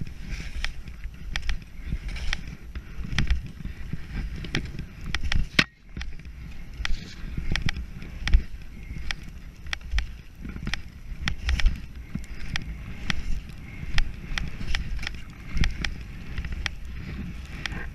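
Skis sliding and scraping over snow on a downhill run, with wind rumbling on the microphone and scattered sharp clicks and knocks throughout. The sound drops out briefly about six seconds in.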